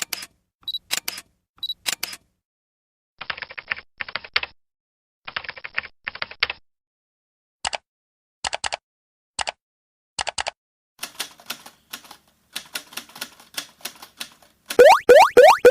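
A series of separate sound effects: quick clicks, then bursts of rapid key-typing clatter in groups, single sharp clicks, and more dense clicking. Near the end comes a fast run of rising, springy pops.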